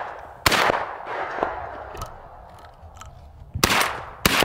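Semi-automatic shotgun firing at doves: one shot about half a second in and two more near the end, each with a short echo trailing off. Fainter pops sound between.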